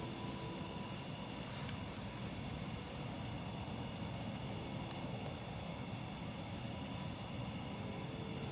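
Steady chorus of crickets and other night insects, several high trills layered together, with a faint, fast, regular pulsing above them.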